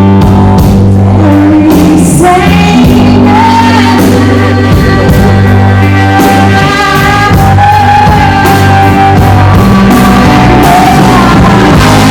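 Live rock band playing with a sung vocal line held over bass and drums, in a large, reverberant room.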